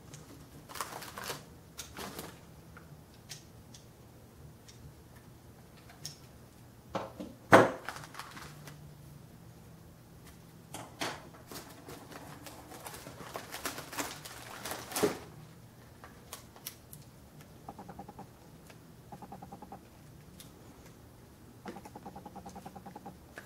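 Hands unpacking and handling a scale model and its packaging: scattered clicks and taps, one sharp knock about a third of the way in, and bursts of rustling in the middle.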